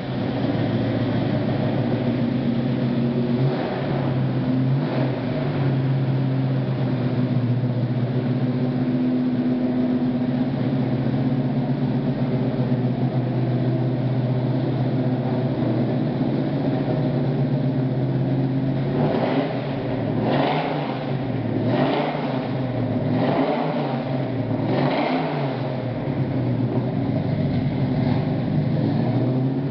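A 496 cubic-inch Chevrolet big-block V8 idling steadily, then blipped several times in quick succession about twenty seconds in before settling back to idle.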